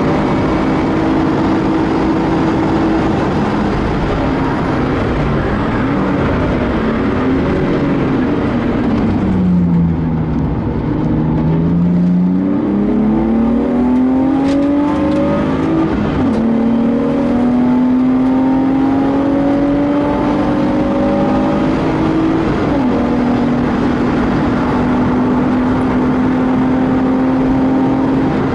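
BMW E36's 2.5-litre M50B25TU straight-six engine heard from inside the cabin at full throttle, with wind and tyre noise. A few seconds in the revs fall away as the car brakes hard and downshifts. From about 10 s in the engine pulls back up through the gears, with upshifts at about 16 s and 22 s.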